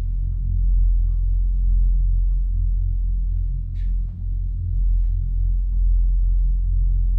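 A deep, steady low drone with a slow pulse, the kind of rumble used as a suspense score in film sound design. A brief high hiss cuts in about four seconds in.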